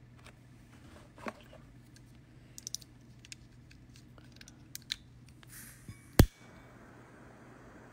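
Scattered small clicks and handling noises of objects being moved close to the microphone, with one sharp knock about six seconds in, the loudest sound.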